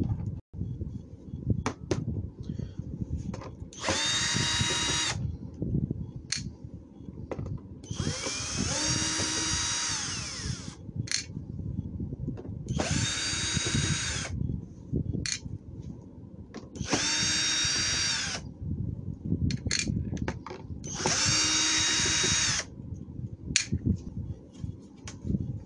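Cordless drill-driver run in five short bursts of one to two seconds each, every burst spinning up to a steady whine and then winding down, as it backs screws out of the plastic underside of a robot vacuum. Light clicks and knocks of handling come between the runs.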